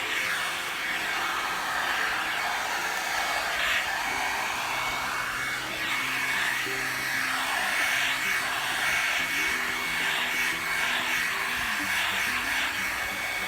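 One-step hot-air blow-dryer brush running steadily, its airy hiss carrying a thin high whine and swelling and easing over and over. Background music plays underneath.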